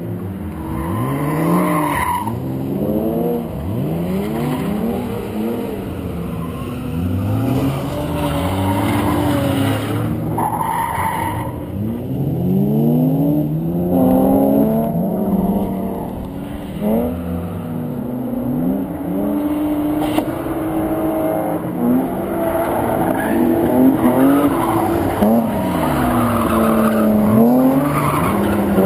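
Car engine revving up and falling back over and over as a car drifts, its tyres skidding and squealing on the asphalt.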